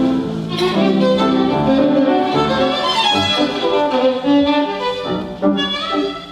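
Violin playing a melodic passage, the bow moving quickly from note to note.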